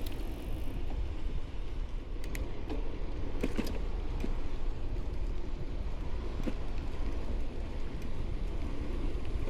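Wind rushing over the microphone and tyres rolling on pavement while a 1994 GT Timberline mountain bike is ridden, with a few light clicks and rattles from the bike.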